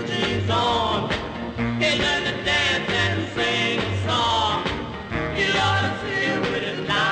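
1959 rock and roll single playing from a 45 rpm record: a band with singing over a steady, even bass beat.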